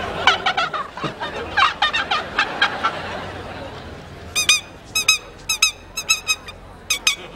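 Bird-like calls: a quick run of chattering, gobbling calls for about three seconds, then about a dozen short, high-pitched squeaks, several in quick pairs.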